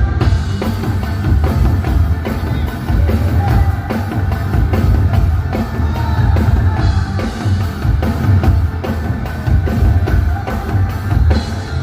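Live band playing loudly through a large outdoor PA system during a sound check, led by a drum kit with a heavy bass drum.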